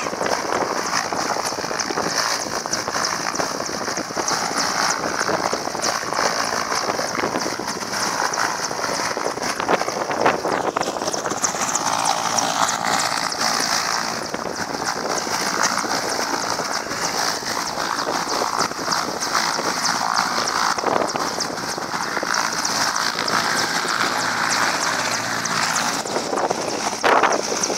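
Military transport helicopter on the ground with its engines running, giving a steady loud rushing noise with a high hiss on top.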